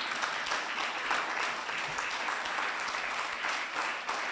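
Audience applauding: many people clapping at once in a steady, dense patter that holds throughout.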